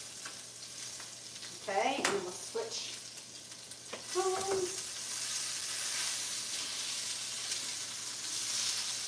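Salmon fillets sizzling in a hot pan on the stove, a steady frying hiss, with a sharp click about two seconds in.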